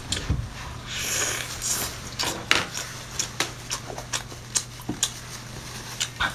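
Close-up mouth sounds of biting and chewing lobster claw meat: a run of wet smacks and sharp clicks, over a steady low hum.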